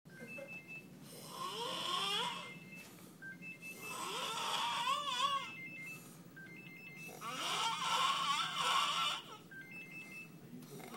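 A sleeping person snoring hard: three long snores about three seconds apart, each with a whistling, wavering pitch, and a fourth starting near the end.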